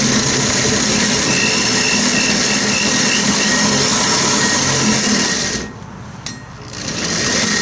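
Drill driving a 2-inch hole saw through a van's sheet-metal wall, cutting steadily. It stops for about a second near the end, with one click in the pause, then starts cutting again.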